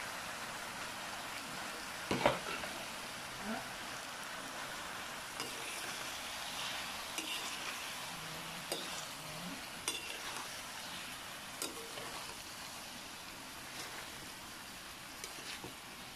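Macaroni and shredded chicken sizzling in a pan as they are stirred and tossed with a metal slotted spoon. The spoon scrapes and knocks against the pan now and then, loudest about two seconds in.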